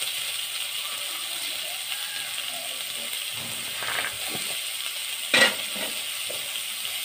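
Potato wedges sizzling steadily in a little oil in a steel kadai, with one sharp click about five seconds in.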